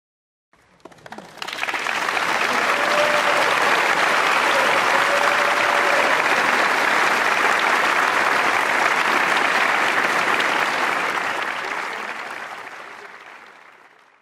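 Concert audience applauding, starting about half a second in after a moment of silence, building quickly to a steady clapping, then fading away near the end.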